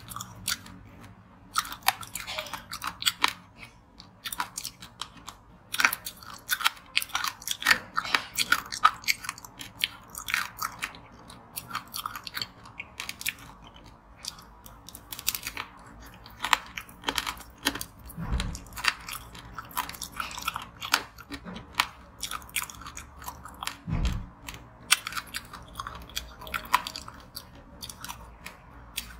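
Close-up biting and chewing of a banana-shaped frozen treat in a hard chocolate and sprinkle coating: many sharp crackles and crunches of the frozen shell, with wet mouth sounds. Two dull low thumps come in the second half.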